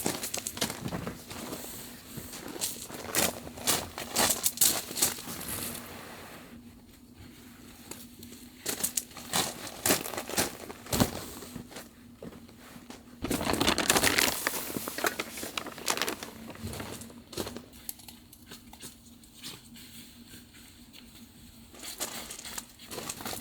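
Camping gear being handled during campsite setup: crinkling and rustling with scattered sharp clicks and knocks, and a longer burst of rustling about 13 seconds in.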